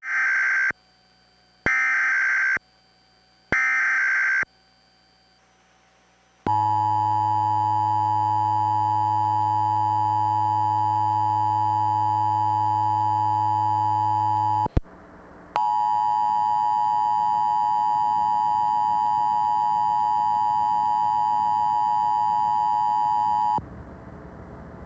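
Emergency Alert System test tones. First come three short screeching bursts of digital header data, about a second apart. After a pause comes the long steady two-tone attention signal. It breaks off for about a second near the middle and stops a little before the end, leaving a low hiss.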